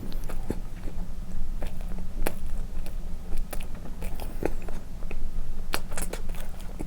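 Close-miked chewing of soft condensed-milk cream bread dipped in milk: irregular small mouth clicks and squishes.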